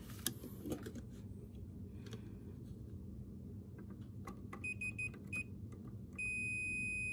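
A multimeter's continuity beeper: a few short, broken high beeps about four and a half seconds in as the test probes touch the board, then a steady tone from about six seconds in, showing continuity across the freshly soldered connection.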